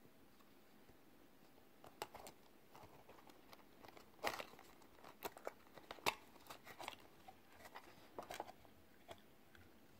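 Faint handling noises as a steel-bracelet smartwatch is worked off the cushion of its cardboard presentation box: scattered light clicks and rustles, a little louder about four and six seconds in.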